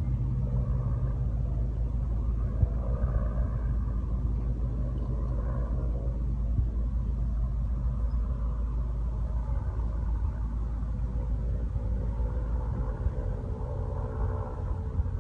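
Steady low rumble of wind buffeting the microphone, with a faint steady engine drone underneath.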